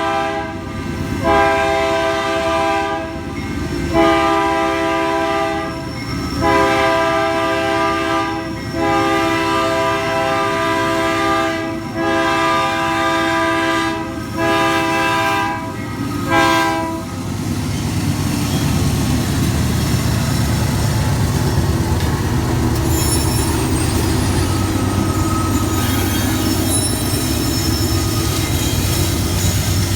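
A GE AC4400CW diesel locomotive's air horn sounds a chord in a string of long and short blasts for about the first half. Then only the locomotive's 16-cylinder diesel engine is heard, working hard with a steady low rumble as it pulls the train under full power.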